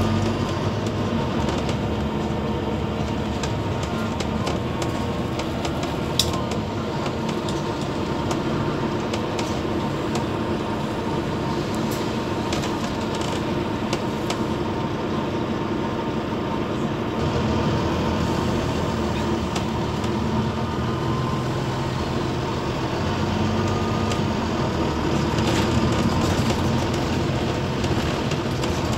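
Inside a Wright Gemini 2 double-decker bus on the move: the diesel engine hums and road noise rumbles steadily, with the engine note shifting as the bus changes speed. A single sharp click sounds about six seconds in.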